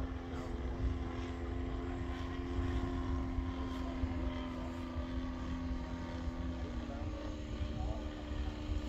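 Engine and propeller of a 120-inch Bushmaster radio-controlled model airplane droning steadily in flight, the pitch shifting slightly near the end. Wind rumbles on the microphone.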